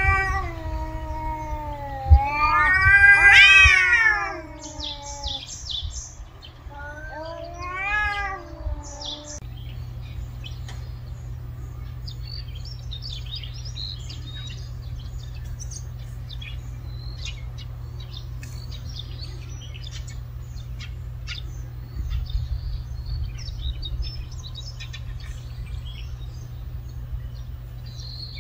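Cats yowling at each other in a territorial standoff: three long, wavering yowls in the first ten seconds, the loudest one about two to four seconds in.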